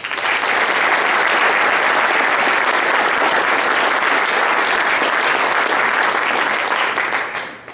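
Audience applauding in a large banquet hall, a dense, steady clapping that starts at once and dies away near the end.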